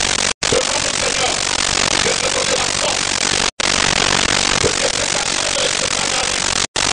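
Loud steady hiss, like recording static, that cuts out to silence for a split second three times, about three seconds apart, with faint short tones buried underneath.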